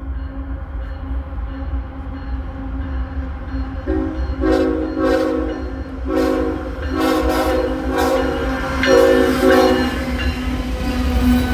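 Diesel freight locomotive's multi-chime air horn sounding a string of short and longer blasts in an irregular playful pattern, starting about four seconds in, over the steady low rumble of the locomotive.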